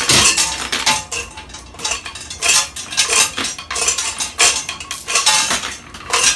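Irregular metallic clinking and rattling, a dense run of sharp clatters of metal parts knocking together.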